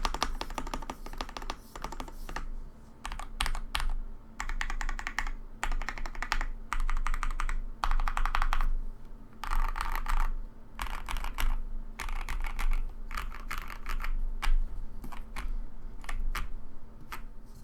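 Typing on a KBD67 Lite R2 65% mechanical keyboard with lubed and filmed Alpaca linear switches and Milk keycaps: bursts of quick keystrokes with short pauses between them.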